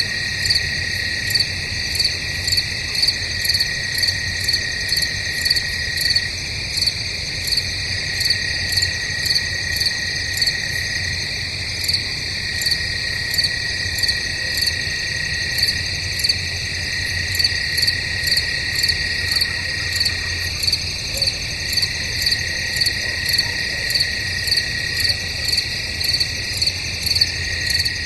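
Crickets chirping: a steady high trill with a regular pulsed chirp over it, about one and a half chirps a second, and a low rumble underneath.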